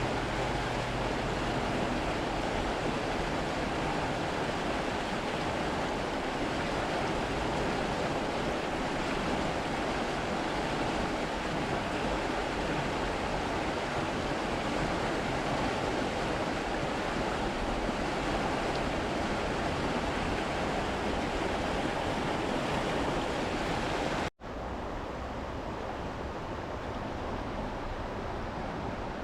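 Steady rush of a river's fast current. About 24 seconds in it cuts out for an instant and comes back a little quieter.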